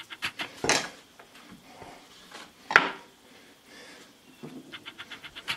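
Handling noises as raw bacon strips are laid and tucked over a cast iron pan on a wooden cutting board: a few knocks and clicks, the sharpest about three seconds in, with light rubbing between them and a quick run of small ticks near the end.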